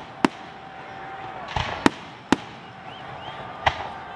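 Aerial firework shells bursting: four sharp bangs spread over about four seconds, two of them about half a second apart near the middle, with a short crackle just before that pair.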